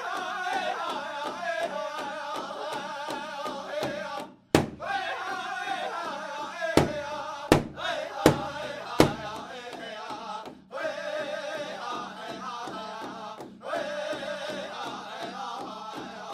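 Native American hand drum song: a singer chanting in phrases over a steady hand drum beat. Several hard, loud accented drum strikes come in the middle.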